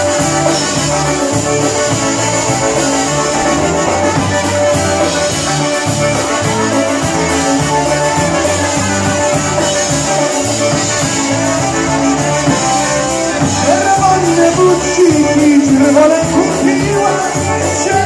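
Live band music with trumpet and concertina over a steady, repeating bass beat. A louder melody line comes forward about fourteen seconds in.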